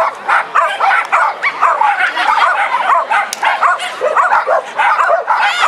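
Dog barking rapidly and continuously in high-pitched yaps, several a second.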